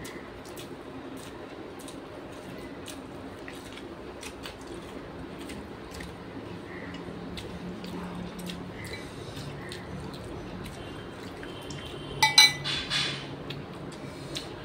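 Fingers mixing and squishing rice on a metal plate and a banana leaf, with small scattered wet clicks of hand-eating. About twelve seconds in, a brief loud clink with a short ring, and a smaller one just after.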